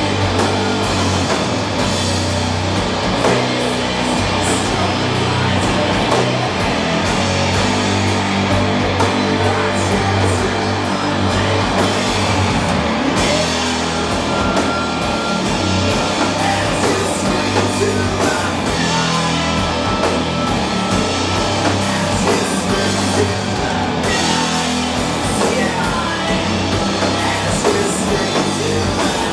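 Doom metal band playing live: heavily distorted guitars and bass hold long low chords that change every few seconds, over drums, with vocals.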